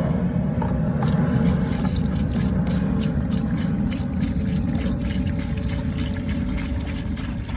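Liquid degreaser being poured into a container, glugging and splashing irregularly, over a steady low hum.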